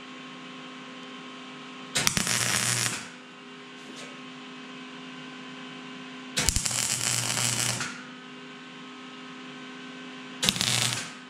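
MIG welder laying three short tack welds on thin steel straps, each a crackling burst of about a second, a few seconds apart. A steady electrical hum runs between the welds.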